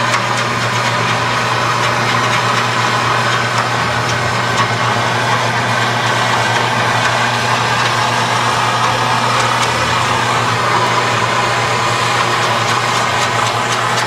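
A motor or engine running steadily at a constant pitch, with a few light clicks and knocks over it.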